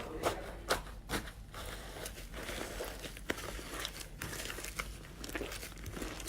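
Slime being squeezed and worked by hand, giving sharp pops and crackles. There are a few louder pops in the first second or so, then finer, scattered crackling.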